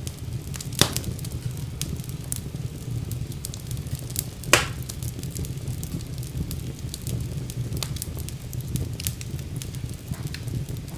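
Fire burning in a fireplace, crackling: a steady low rumble of flames under many small clicks, with two loud sharp pops, one about a second in and one near the middle.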